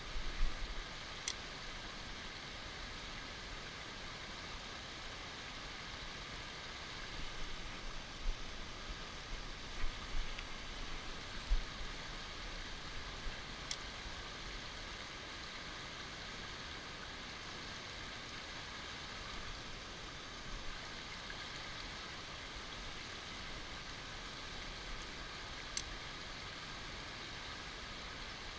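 Fast-flowing stream rushing over rocks close to the microphone: a steady, even rush of water. A few low bumps on the microphone come in the first half.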